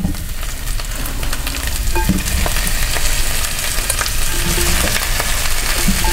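Cauliflower florets, sweet pepper strips and red onion sizzling as they are dropped by hand into hot coconut oil in a stainless steel sauté pan over medium-high heat, a steady hiss with many small spitting pops.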